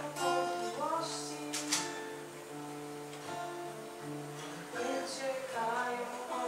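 Acoustic guitar played live, with a voice singing over it in phrases.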